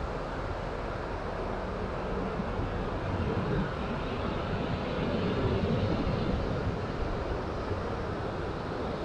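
Ocean surf breaking on a sandy beach, a steady rushing wash that swells a little about halfway through.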